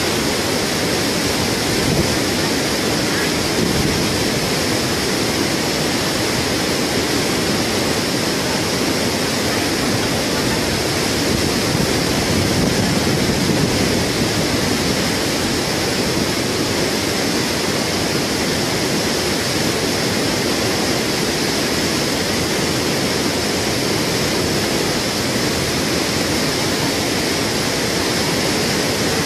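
Steady, unbroken rush of fast-flowing river water.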